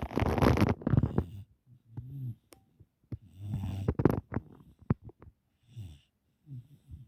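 Dog snoring in its sleep: a run of low snores at uneven intervals, the loudest in the first second or so, with a sharp click about five seconds in.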